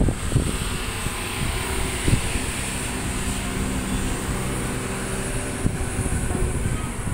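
Steady low hum of a heavy vehicle's engine running nearby, with road noise and wind on the microphone, and a couple of brief knocks.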